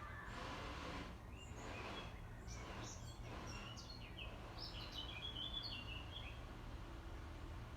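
Small birds chirping in short, scattered calls, busiest about five to six seconds in, over a steady low rumble of background noise with a couple of soft whooshes in the first few seconds.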